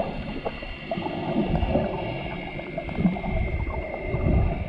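Muffled underwater sound picked up by a submerged camera: water gurgling and moving, with irregular low thumps and a faint steady high tone.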